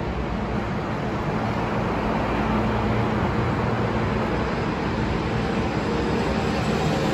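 Steady city traffic noise, a low rumble that swells slightly toward the end.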